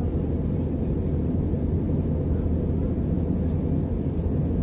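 Steady low cabin drone of an Airbus A319 in flight: engine and airflow noise heard from inside the cabin, with an even low hum.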